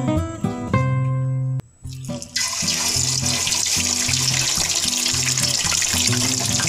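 Pork belly deep-frying in hot cooking oil: a dense, steady sizzling hiss that starts suddenly about two and a half seconds in, under guitar music.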